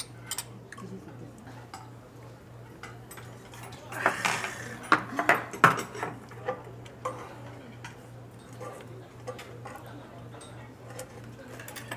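Chopsticks, spoons and dishes clinking on a restaurant table during a meal, scattered light clicks throughout, busiest about four to six seconds in, where some low voices also come through. A steady low hum runs underneath.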